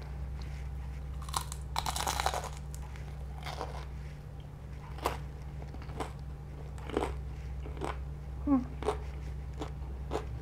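Biting into and chewing crispy buttermilk fried chicken. There is a dense burst of crunching about two seconds in, then single crunchy chews roughly once a second, over a steady low hum.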